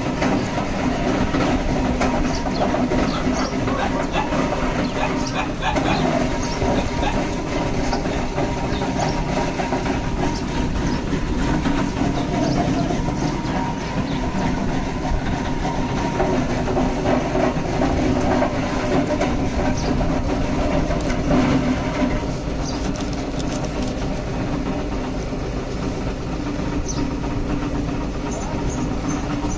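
Heavy knife cutting through seer fish steaks on a wooden chopping block, with repeated knocks of the blade, over a steady loud rumble.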